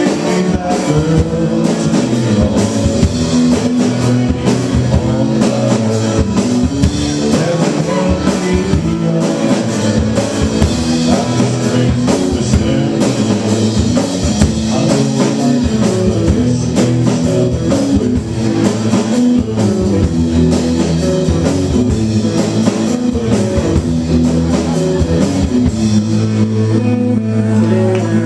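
A live rock band playing loudly, with guitar and a drum kit driving a steady beat.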